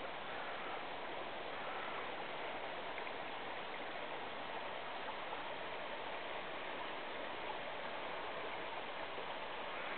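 River water rushing steadily over gravel shallows: an even, unbroken hiss.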